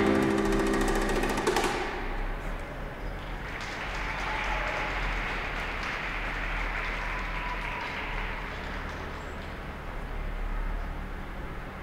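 The skating programme's recorded music ends on a held chord about a second and a half in, followed by scattered applause echoing in the ice arena, swelling and fading over several seconds.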